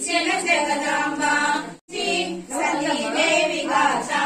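Several women singing a devotional aarti (harathi) song together, unaccompanied; the singing cuts out for an instant a little under two seconds in.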